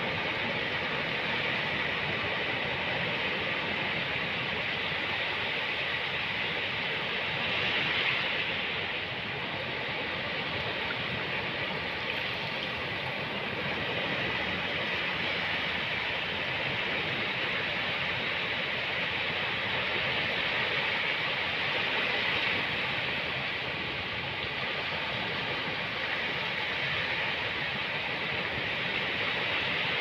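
Ocean waves breaking on a beach: a steady wash of surf that swells a little about eight seconds in and again around twenty-two seconds.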